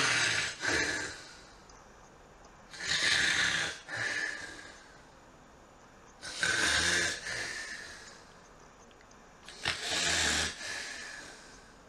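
A man snoring in his sleep: four long, noisy snoring breaths about three seconds apart.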